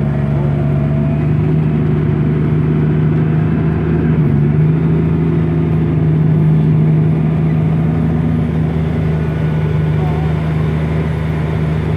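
Case IH STX500 tractor's diesel engine running steadily under load while pulling a deep tillage implement, with a brief small dip in pitch about four seconds in.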